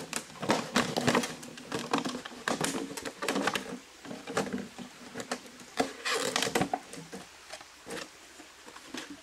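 Knife cutting down the sides of a plastic bottle: a quick run of sharp plastic cracks and crackles that thins out after about four seconds, with a louder crinkle about six seconds in.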